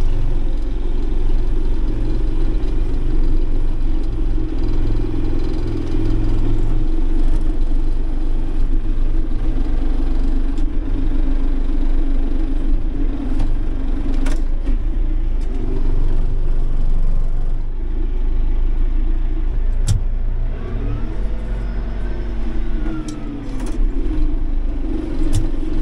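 John Deere tractor's diesel engine running steadily, heard from inside the cab, with a few sharp knocks and clicks in the second half and a brief rise and fall in engine pitch near the end.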